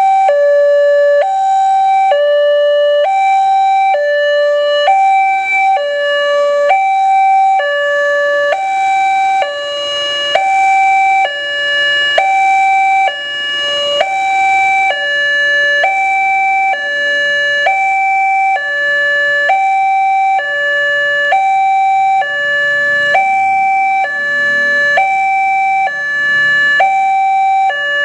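Railway level-crossing warning siren, the newly replaced electronic type, sounding a loud, steady two-tone hi-lo alarm that alternates evenly between a higher and a lower note, each held for under a second.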